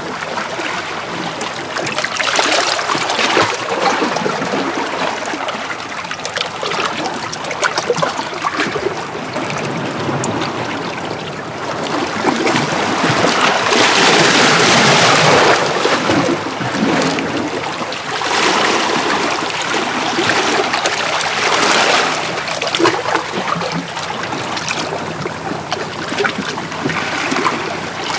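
Small sea waves washing in and out against shoreline rocks, with splashing and trickling as the water drains back. The washes swell and fade several times, the biggest surge about halfway through.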